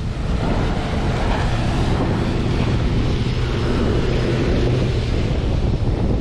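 Strong wind buffeting the microphone over rushing waves and water, with a faint steady low hum underneath.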